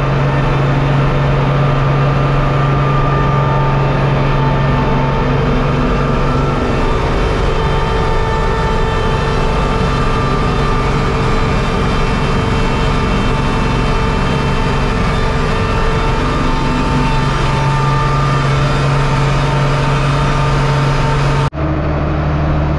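Tractor engine running steadily while pulling loaded grain wagons on the road, with a higher whine over the engine hum. The sound changes abruptly near the end.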